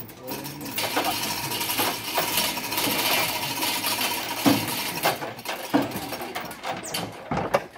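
Metal chain rattling and clicking as stacked loudspeaker cabinets are hoisted up a truss, with a couple of heavier wooden knocks from the cabinets being shifted about halfway through.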